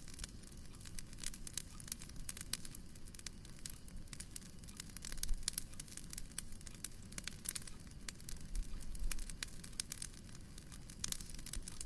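Wood fire in a fireplace crackling: dense, irregular pops and snaps over a low steady rumble, which swells briefly twice.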